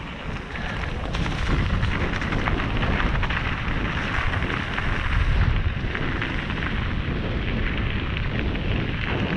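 Mountain bike descending a forest dirt and gravel track: a steady low wind rumble on the action camera's microphone over the crunch and chatter of the tyres and the bike rattling over the rough surface.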